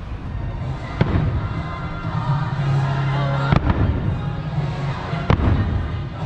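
Aerial fireworks shells bursting, three sharp bangs about one, three and a half and five seconds in, over music playing.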